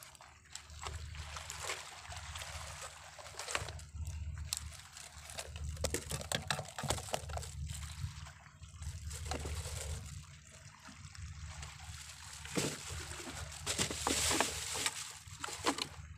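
Small sea waves lapping and sloshing among the rocks of a rocky shoreline, swelling and easing every two to three seconds, loudest near the end, over a low rumble.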